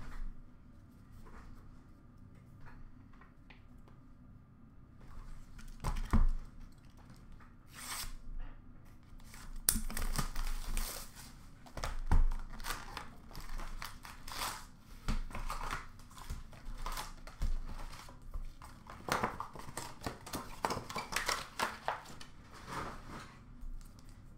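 Hockey card packs being torn open: wrappers tearing and crinkling, with cards and paper rustling, starting after a few quieter seconds. A couple of sharp thumps, from packs or a box set down on the glass counter, stand out among them.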